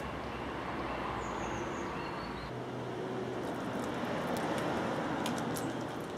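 Steady outdoor background noise with a low hum that stops about two and a half seconds in, a couple of short high bird chirps in the first half, and a scatter of faint sharp clicks in the second half.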